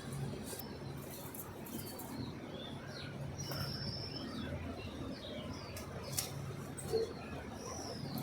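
Small birds chirping, many short quick notes scattered throughout, over a low steady background hum, with a sharp click about six seconds in.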